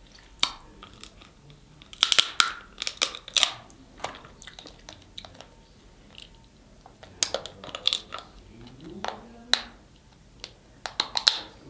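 Snow crab claws and shells being cracked and broken apart by hand: clusters of sharp cracks and snaps, three bursts spread over the stretch.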